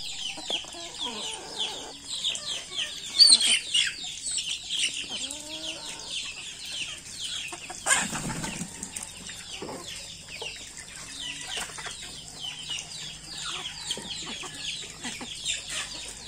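Native chickens clucking and peeping as they feed: a dense, continuous run of high, falling peeps with lower clucks underneath. A brief burst of noise comes about eight seconds in.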